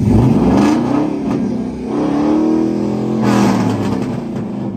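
Pickup truck engine revved twice in place: the pitch climbs over the first second, holds, climbs again about two seconds in, then falls back toward idle.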